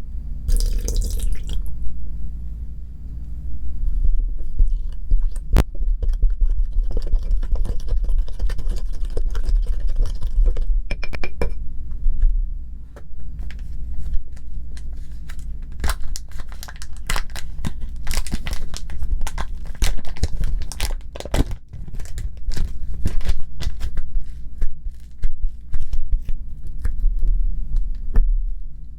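Close-miked slime-making handling sounds: irregular crackles, clicks and sticky squishes from mixing the salt-and-water slime, over a steady low hum.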